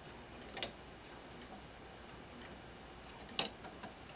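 Grasshopper escapement of a 3D-printed PLA clock ticking as it runs on its maintaining spring: two sharp clicks about three seconds apart, with fainter ticks between, as the pallets take the escape wheel.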